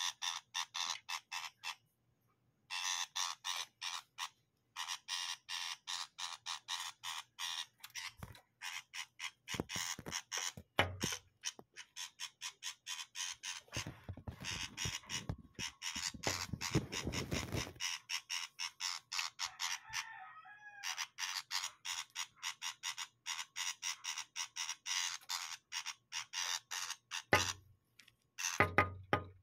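Brown shrike giving a harsh, rapid rattling chatter, repeated in runs of a few seconds with short pauses. Low rumbling knocks from the phone being handled come in the middle and again near the end.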